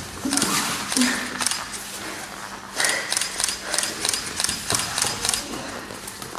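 Grappling fighters straining on a mat: two short grunts in the first second, then a run of quick, repeated breaths with scuffling of bodies on the mat.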